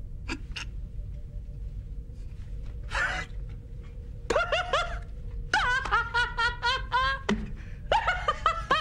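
A man laughing loudly: a few short breathy catches at first, then from about four seconds in a rapid run of 'ha' syllables, each falling in pitch. A faint steady hum sits underneath before the laugh.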